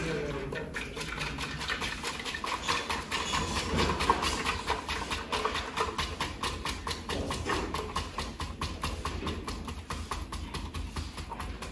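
Blended sauce draining from an upturned blender jar through a plastic colander into a metal pot, making a quick, irregular run of small drips and clicks.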